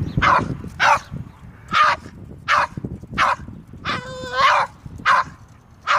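Boston Terrier barking repeatedly: short, sharp barks about one a second, with one longer, drawn-out yelp about four seconds in.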